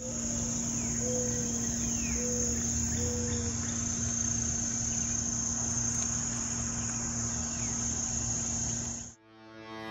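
Chorus of crickets and other insects: a steady high-pitched drone with a low steady hum beneath it and three short low notes in the first few seconds. It cuts off abruptly near the end.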